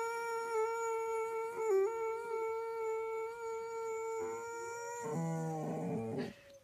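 Boxer dog howling: one long, steady howl that breaks into a lower, wavering note about five seconds in and stops just before the end.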